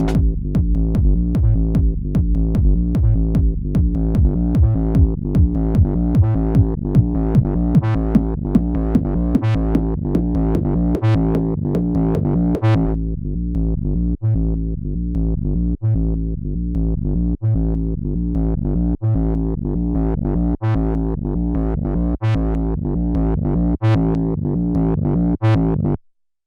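Electronic acid music at 150 BPM played live on an Elektron Octatrack: a driving synth bass with a dense beat. About halfway through, the high end drops away, leaving the bass and sparse sharp hits. The music cuts off abruptly near the end.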